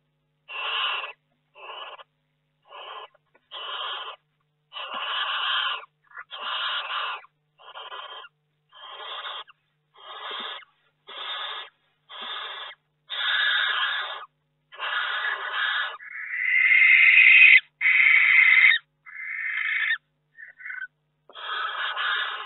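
Barn owl in a nest box giving a long series of harsh, hissing calls, a little under one a second, with a louder, longer screech about two-thirds of the way through.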